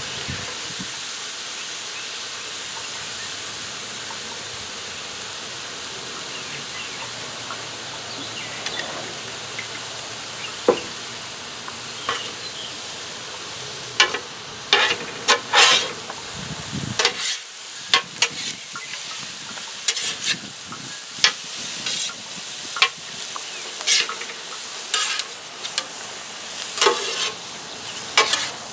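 Cauliflower fried rice sizzling on a hot homemade flat-top griddle, a steady hiss. From about halfway in, metal spatulas scrape and clack against the griddle plate as the rice is turned and tossed.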